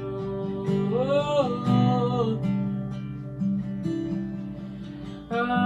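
Acoustic guitar strummed, its chords ringing on, with a short wordless sung phrase about a second in.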